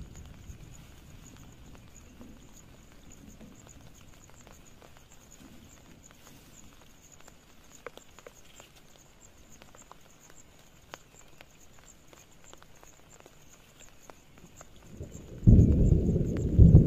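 Faint rain patter with scattered light ticks of drops, then near the end a sudden, loud, low rumble of thunder that keeps rolling.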